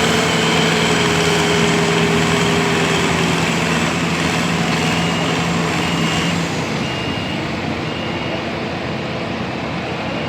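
A vehicle engine runs steadily, its tone sagging slightly and then fading about two-thirds of the way through. From about halfway, a reversing alarm beeps roughly once a second over it.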